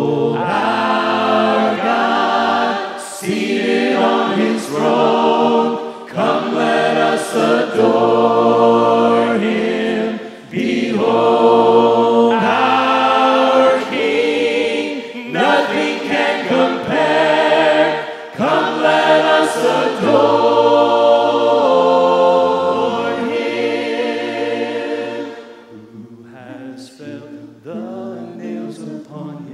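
Mixed voices singing a hymn a cappella in harmony, with no instruments. About 25 seconds in, the singing drops to a much softer passage.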